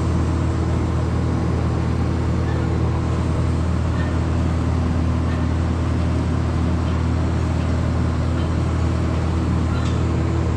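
A steady mechanical hum with a few constant low tones, unchanging throughout.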